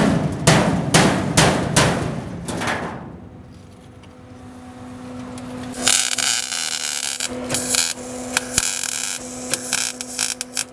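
Rhythmic drum beats fade out over the first three seconds. About six seconds in, a MIG welder's arc starts crackling steadily over a low hum as a bead is run along a steel bed brace, with short breaks where the arc stops and restarts.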